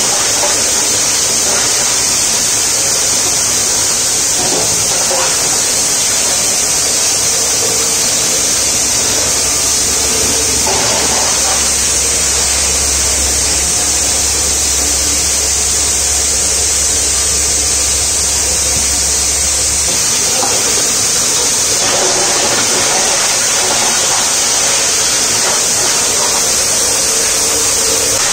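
Plastic grinder with blower running, a loud, steady rushing noise as LDPE containers are ground to flakes and blown out through the duct. A deeper hum joins from about a third of the way in until about two-thirds through.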